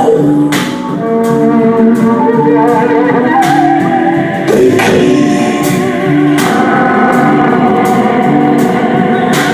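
Instrumental break of a song: sustained pitched lines over a steady beat, with a gliding high melody.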